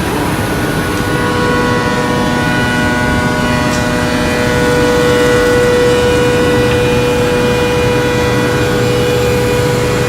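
CNC scroll saw running and cutting, with a steady machine whine and a rapid, rough chatter underneath.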